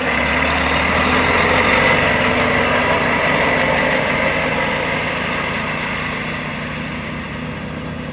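Volvo FH 540 truck's diesel inline-six running under load as the tractor unit pulls away. Loudest about two seconds in, then slowly fading as it drives off.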